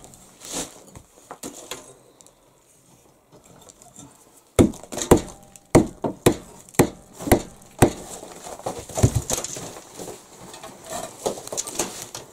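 Hammer blows driving a wooden handle into the head of a small mason's pick. A couple of knocks, a pause of a few seconds, then a quick run of sharp strikes and lighter tapping.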